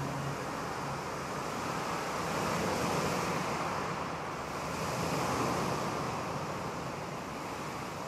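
Ocean surf: a steady wash of breaking waves, swelling a little about three seconds in and again after five.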